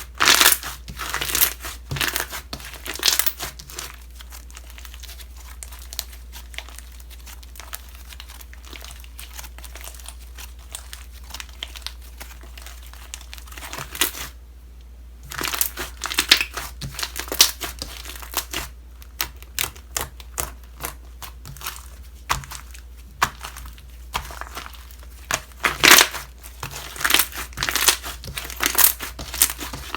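Slime being squeezed and stretched by hand, giving runs of crackling clicks, with a short lull about halfway.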